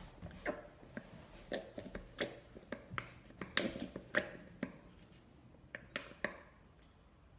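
Irregular wet squelches and small sticky pops, about a dozen of them, from slime ingredients being squeezed and mixed by hand; they die away about a second before the end.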